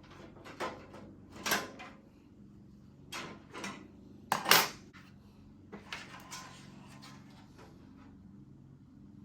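Hard objects being handled, making a string of separate clicks and clattering knocks, the loudest about four and a half seconds in, over a steady low hum.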